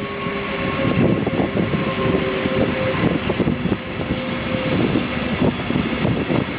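A train passing close by: loud wheel-on-rail running noise with rapid clatter and a few thin whining tones.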